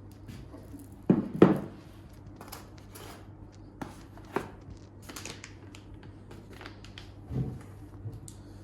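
Scattered clicks, taps and knocks of small objects being handled, with two louder knocks about a second in, over a steady low hum.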